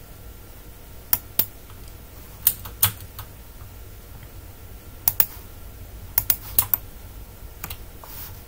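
Computer keyboard keystrokes: about a dozen sharp key clicks in short irregular clusters with pauses between.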